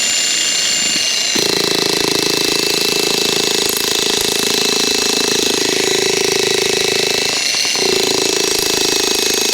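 Electric jackhammer running: its motor whines steadily, and about a second and a half in it starts hammering rapidly, with a short break near three-quarters of the way through before hammering again. The chisel bit is jammed in stringy cottonwood.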